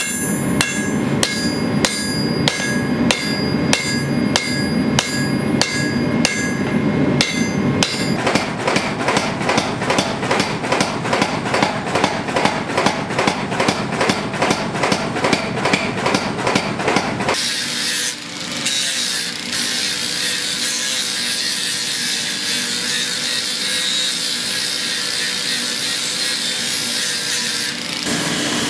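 Hammer blows on Damascus steel at the anvil, about two a second with a ringing note, then faster, duller blows about three a second. About two-thirds of the way in it cuts to a steady power-tool grinding hiss with a wavering motor hum.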